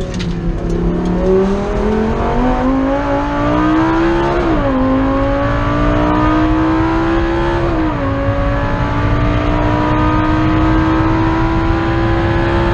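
Race-prepared Lamborghini Gallardo's V10 engine, heard from inside the cabin, pulling hard under acceleration. The pitch climbs, drops sharply at an upshift about four and a half seconds in and again at about eight seconds, then climbs again.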